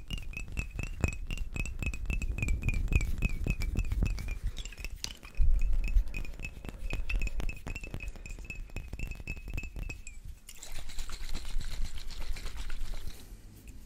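Fingers tapping rapidly on small glass bottles holding liquid, clinking, with a thin ringing tone over the taps and a single heavier knock about five seconds in. About ten seconds in, the tapping gives way to a soft hissing swish.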